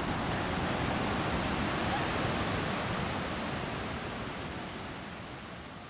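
Steady rush of a waterfall, fading away over the last couple of seconds.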